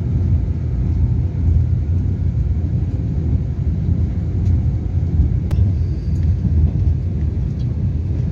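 Steady low rumble inside a Taiwan Railways EMU3000 electric train car running at speed: wheels on the rails and running gear. There is a single sharp click about five and a half seconds in.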